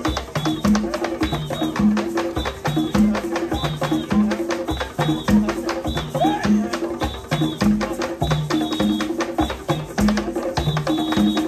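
Live West African-style hand-drum ensemble of djembes and tall barrel drums playing a fast, steady, interlocking rhythm, with low drum notes repeating in an even pattern under dense sharp slaps.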